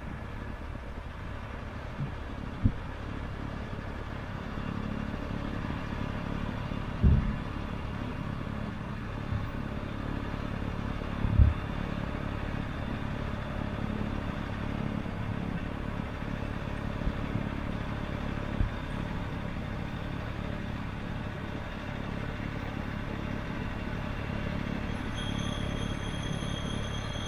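Tractor engine running under load, driving a rear-mounted two-stage snowblower that is throwing snow. It is a steady drone that grows a little louder as the machine comes closer, with a few sharp knocks, the loudest about 7 and 11 seconds in.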